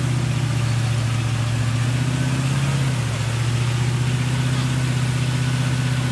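A vehicle engine running steadily with a constant low drone, its tone shifting slightly about three seconds in.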